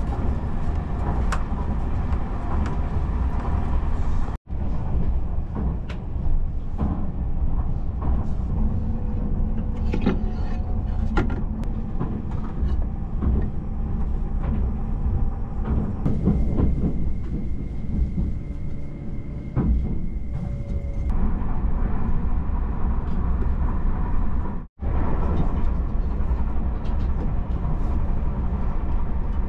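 Steady low rumble of a Tobu Spacia X electric express train running, heard from inside the passenger cabin, with a few light clicks and knocks of a fold-out seat tray table being handled. The sound cuts out for an instant twice.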